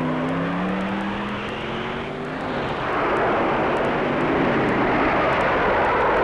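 Drag-racing go-kart engine running hard. Its pitch rises steadily over the first two seconds, then gives way, from about three seconds in, to a louder, steady rushing roar as the kart speeds away.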